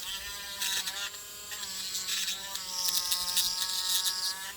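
Small handheld electric rotary sanding tool running with a steady whine that dips in pitch and recovers several times as the bit is loaded. Bursts of gritty grinding come in as it sands out the inside of a plastic socket, the longest near the end.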